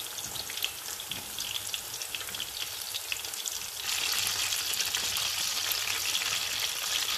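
Rice-flour-battered courgette flowers deep-frying in hot peanut oil: a steady crackling sizzle that gets louder about four seconds in.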